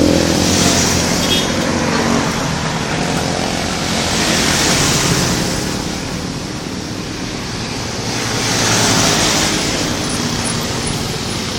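Road traffic: vehicles passing one after another, the noise swelling and fading about every four seconds over a steady low engine note.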